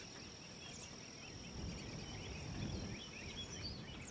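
Faint countryside ambience: a steady high insect trill with many short bird chirps scattered over it, above a low rumble.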